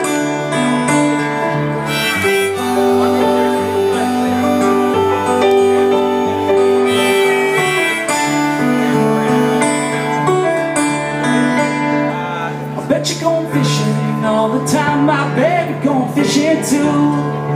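Live band playing an instrumental passage of a blues song: acoustic guitar, electric keyboard and electric guitar, with a sustained melodic lead over the chords.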